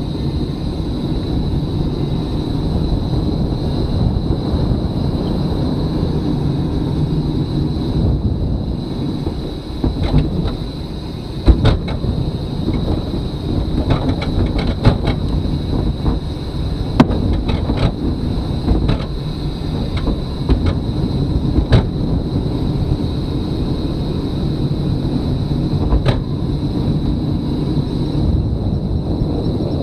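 A velomobile rolling along on asphalt: steady rumble of the tyres and drivetrain coming through the shell, with a thin steady high whine. A run of sharp knocks and rattles from bumps in the road about ten to twenty-two seconds in.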